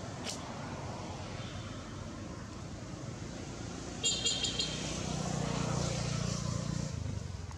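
Road traffic rumbling steadily, swelling as a vehicle passes about five seconds in, with a few short high-pitched toots about four seconds in.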